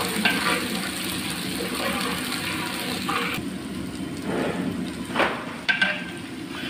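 Whole spices and dried red chillies sizzling steadily in hot oil in a large aluminium pot. A metal ladle scrapes and stirs against the pot a few times.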